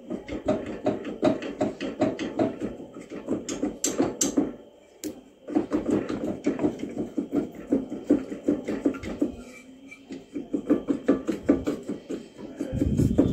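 Rapid runs of light knocks and clunks, several a second, as the stuck cylinder block of a Yezdi 250 two-stroke is worked loose from the crankcase. There are two short pauses along the way.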